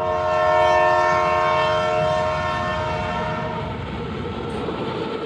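Train horn sounding one long chord of several steady tones. It starts suddenly, is loudest in the first second and fades out after about three seconds. The low rumble of the train runs underneath.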